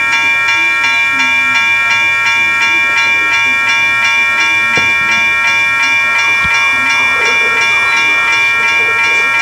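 Toy railroad crossing signal's electronic bell ringing in a steady, rapid ding-ding rhythm. A toy train running past near the end adds a low whir.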